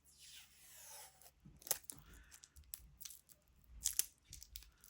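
A plastic strip being peeled off by hand: a tearing rip over about the first second, then scattered crinkles and small clicks as the plastic is handled.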